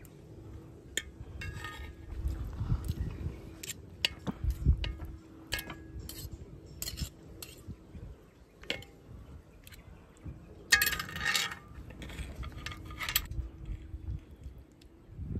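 Metal knife and fork clicking and scraping against a multi-griddle pan while a hamburger steak and fried egg are cut. It comes as scattered sharp clicks with short scrapes, the longest a little past two-thirds of the way through.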